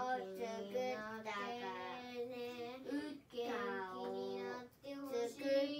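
A young boy singing in long, held notes, in three phrases with short breaks between them.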